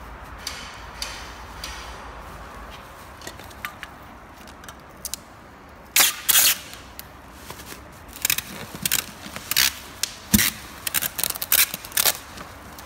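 Packing paper and bubble wrap rustling and crinkling as a bundle is wrapped, then a handheld packing-tape gun pulling off packing tape in a run of short, sharp rips from about six seconds in.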